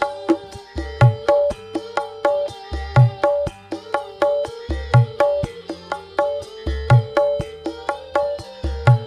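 Kendang, the Indonesian two-headed hand drum, playing a steady repeating rhythm of quick, sharp high strokes. A deep low stroke falls about every two seconds. A held, wavering melodic tone runs underneath.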